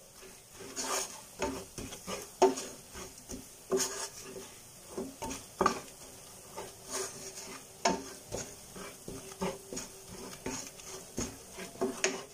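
Wooden spatula stirring and scraping a thick onion-and-spice masala around a stainless steel pot, with irregular knocks against the pot and a faint sizzle of the ground spices frying in oil on low heat until roasted.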